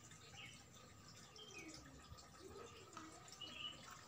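Near silence: faint room tone with a few faint chirps.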